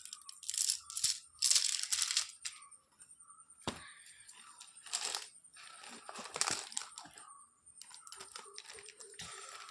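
Plastic pens clicking and clattering against one another as they are handled, with short rustles of a pouch's packaging; the loudest rustling comes about one and a half seconds in.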